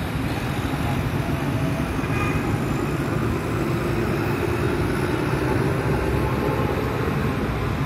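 Dense city street traffic, mostly motorbikes with cars and a bus among them, running as a steady rumbling din with no breaks.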